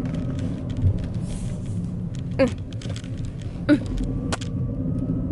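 Steady low engine and road rumble of a moving car, heard from inside the cabin. Two brief short sounds stand out, one about two and a half seconds in and one near four seconds.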